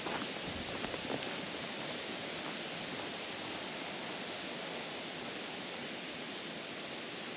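A light breeze blowing through the treetops: a steady, even hiss of rustling leaves, with a few faint ticks in the first second or so.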